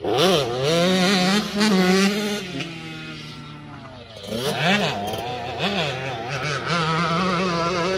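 Dirt bike engine revving up and easing off again and again as the rider works the throttle on the track, its pitch swelling and dropping in quick waves. It is loudest in the first couple of seconds, dips briefly past the middle, then picks up again and holds fairly steady near the end.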